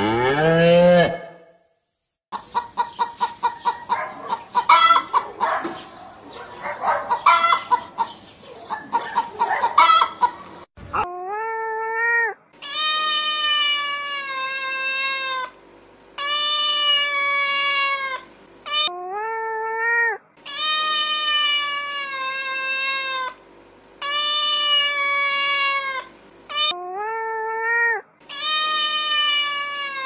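The end of a cow's moo, then chickens clucking in quick short calls for several seconds. From about the middle on, a cat meows over and over in long drawn-out meows of two to three seconds each.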